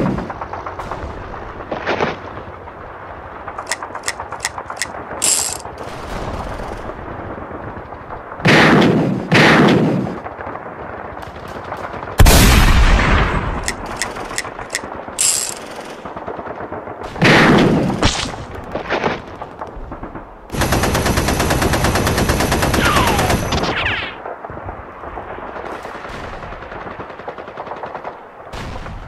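Battle sound effects: gunshots and bursts of machine-gun fire, with a loud blast about twelve seconds in and an unbroken machine-gun burst of about three seconds near the end.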